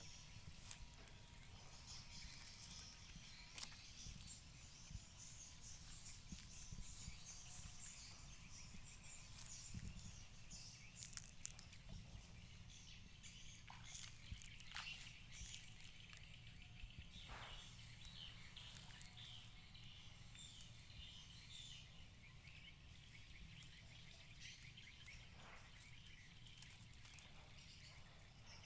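Near silence: faint outdoor ambience with thin high-pitched chirping and a few scattered soft clicks and rustles.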